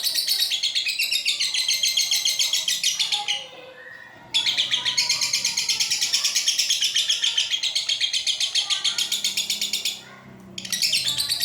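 Lovebird doing its 'ngekek': long runs of very rapid, high-pitched chattering notes. The song breaks off twice, about three and a half seconds in and near the end, then starts again.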